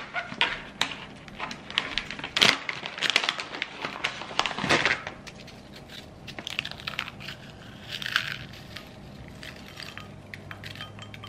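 Thin, crisp coconut cashew cookies crushed and crumbled between the fingers, a run of sharp crackles and snaps that is densest and loudest in the first half and thins out toward the end.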